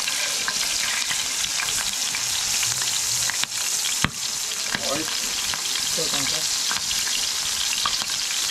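Lionfish fillets frying in hot oil in a black pan: a steady high sizzle with scattered sharp pops, the loudest about four seconds in.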